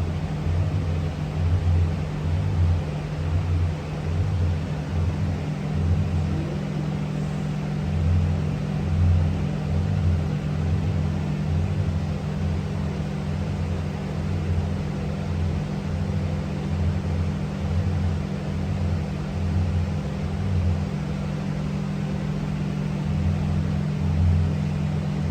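A steady low mechanical hum with a deeper throb that pulses on and off about once a second.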